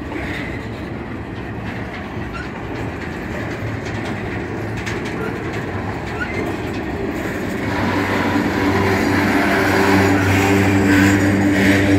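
Freight cars of a manifest train rolling past at close range: steel wheels rumbling and clattering on the rails. It grows louder in the second half, where a steady low hum joins in.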